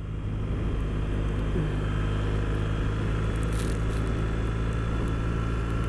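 Triumph Bonneville parallel-twin engine running at a steady cruise, with wind and road noise over the riding camera.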